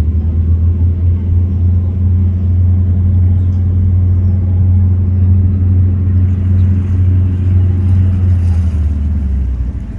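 Steady low drone of a cruising yacht's engines under way, a deep hum with a fainter higher overtone, easing off shortly before the end.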